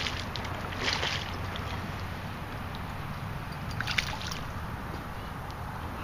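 Lake water sloshing at the edge, with brief splashes about a second in and again about four seconds in.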